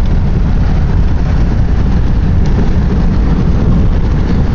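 Steady, loud rumble of a truck on the move, its engine and tyre noise heard from inside the cabin.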